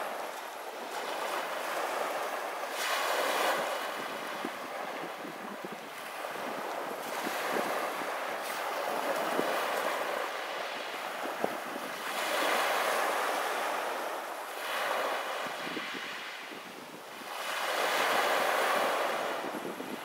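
Small sea waves breaking on a pebble beach and washing back, the surf rising and falling in about six surges a few seconds apart.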